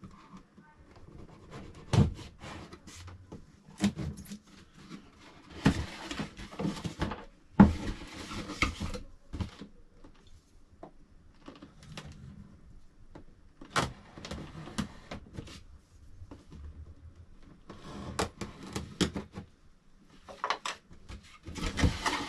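Unboxing handling noise from a 3D printer's packaging and parts being taken out: scattered sharp knocks and clicks with stretches of rustling.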